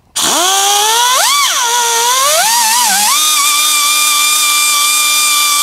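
Die grinder with a sanding roll spinning up to a high whine, its pitch dipping and wavering as the roll bears on the metal part, then holding steady before it winds down at the very end. It is sanding the paint finish off the inside of the part so a bolt can be started.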